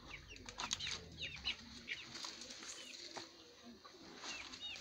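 Small birds chirping over and over: short, high, falling chirps, several a second, with a few soft knocks among them.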